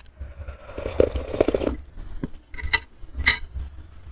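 Broth being slurped and gulped straight from a lifted soup bowl for about a second and a half, followed by a few short knocks of the bowl and utensils on the table.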